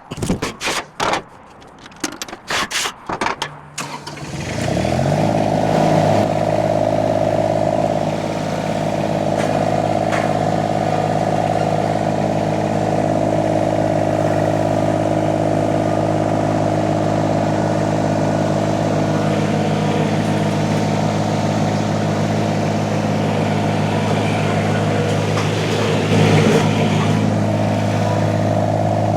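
A few sharp knocks, then the Derette XC1100 mini skid steer's engine starts about four seconds in and settles into a steady run with a constant whine over it.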